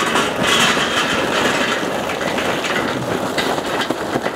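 Charcoal pouring out of a bag into a perforated metal charcoal basket: a steady clatter of many small knocks as the pieces tumble onto each other and the metal.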